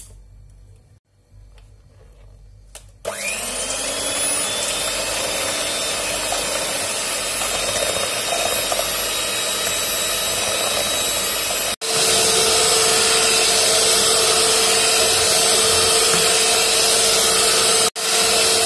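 Electric hand mixer switched on about three seconds in, its whine rising as the beaters spin up, then running steadily as it beats eggs and sugar in a steel bowl. After a momentary break about twelve seconds in it runs louder with a steadier hum, while the batter is whipped to a pale, thick foam.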